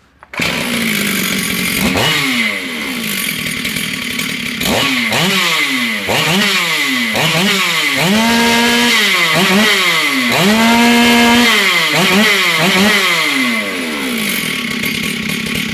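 Two-stroke chainsaw engine running, its throttle blipped over and over so the revs climb and fall back to idle, with two longer revs held high about eight and eleven seconds in.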